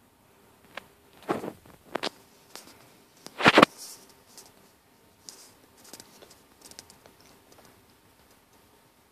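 A few short rustling and scraping noises, the loudest about three and a half seconds in, followed by faint scattered ticks.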